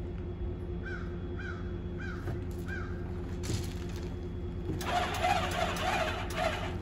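Birds calling: four short, clear, evenly spaced calls, then a quick run of harsh, rapid calls in the last two seconds, over a steady low hum.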